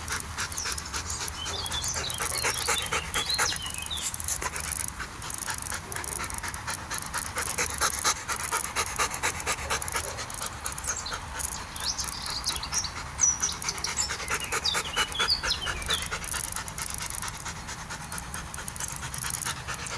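Dog panting fast and steadily, close by.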